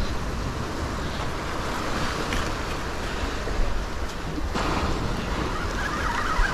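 Surf breaking and washing up the beach, a steady rushing noise with wind rumbling on the microphone; the wash grows a little louder about two-thirds of the way through.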